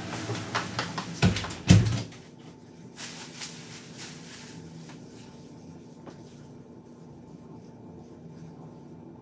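A glass sliding door being slid shut, a run of knocks ending in a loud thud as it closes just under two seconds in. Then low room tone with a few faint rustles.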